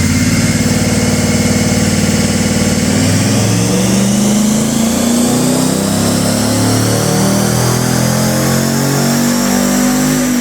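Ram 1500's 5.7-litre V8, breathing through stainless tuned-length headers, high-flow cats and a dual 3-inch catback exhaust, running hard on a chassis dyno. The engine note drops about three seconds in, climbs steadily for several seconds, then falls again near the end.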